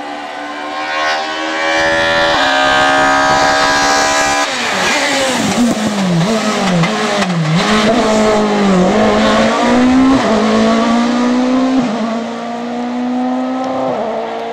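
Hill-climb race car engine revving hard at high rpm, stepping up through a gear change about two seconds in. About four and a half seconds in its pitch drops sharply, then dips and recovers several times as it shifts and lifts, before climbing steadily again and easing off near the end.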